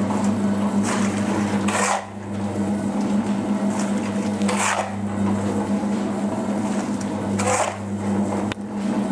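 An electric cement mixer runs with a steady hum while shovelfuls of dry material are thrown into its turning drum, three times about three seconds apart. The mixer is being loaded with clay, sand and barley for a torchis (clay plaster) batch.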